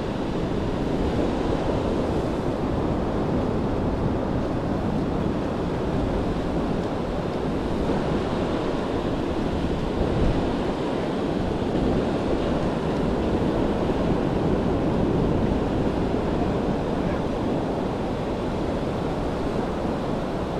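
Steady surf washing on a beach, with wind buffeting the microphone.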